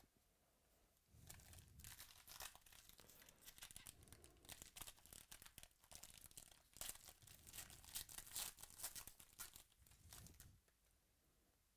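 Faint crinkling and tearing of a foil trading-card pack wrapper as it is handled and ripped open. It starts about a second in, is busiest in the second half and stops about a second before the end.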